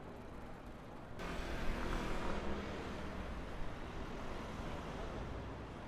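City street noise of road traffic, with no speech. The noise turns abruptly louder and brighter about a second in.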